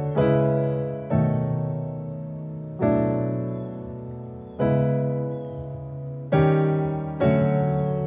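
Slow, soft piano music: chords struck about every one to two seconds, each left to ring and fade before the next.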